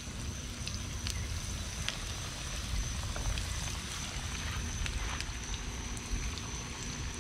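Breaded fish nuggets deep-frying in vegetable oil in a cast iron skillet, with the oil at about 350 °F: a steady sizzle with scattered pops and crackles as more pieces are dropped in, over a low rumble.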